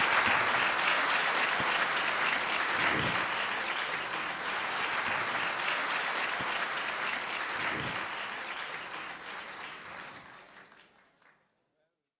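Large audience applauding, a dense steady clapping that fades out over the last few seconds.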